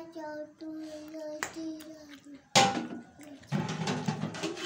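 A high-pitched voice holds steady notes in the background. About two and a half seconds in comes a sharp metallic knock, followed by scraping and clatter of a serving spoon in a steel cooking pot as biryani rice is dished out.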